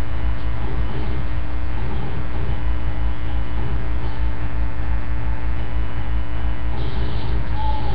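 Loud, steady electrical mains hum with a buzz of many overtones, unchanging throughout.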